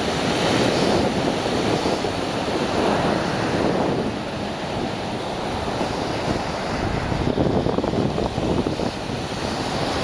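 Rough sea surf breaking on a sandy beach: a continuous loud wash of waves that swells and eases every few seconds.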